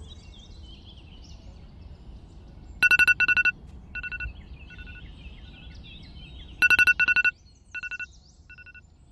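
Alarm beeping: two loud bursts of rapid beeps, each followed by fainter repeats that die away like an echo. Birds chirp in the background throughout.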